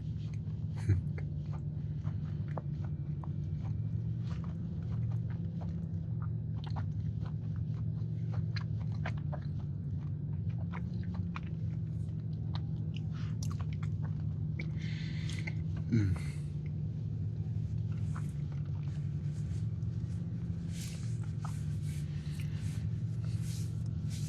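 Close-up chewing and mouth sounds of someone eating a soft cookie: many small wet clicks and smacks over a steady low hum. A short voiced sound, falling in pitch, comes about sixteen seconds in.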